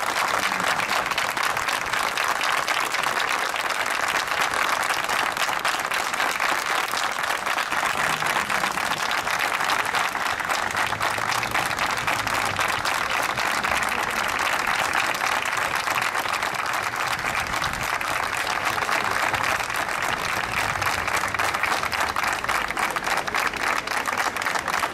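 A crowd applauding, a steady sustained patter of many hands clapping.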